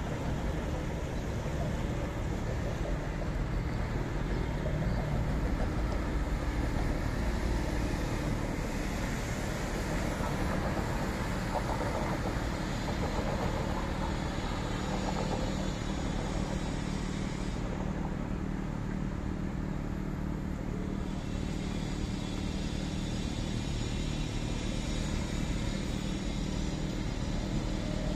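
City street traffic: cars driving past and waiting at a junction, a steady hum of engines and tyres.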